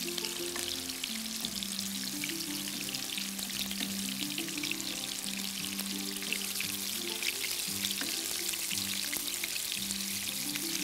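Minced-beef kofta sizzling and crackling steadily as they fry in corn oil in a pan while they are turned, with background music underneath.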